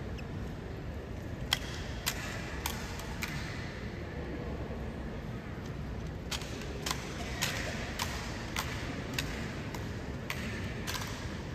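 Sharp clacks in steady runs of about two every second and a quarter, with pauses between the runs: the honour guard's boots striking the stone floor during the drill, over a low crowd murmur.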